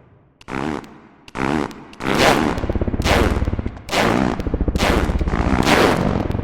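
Fart sounds used as a musical instrument, playing the notes of a song as pitched, sputtering farts. Two short, quiet notes come first, then louder and longer ones from about two seconds in.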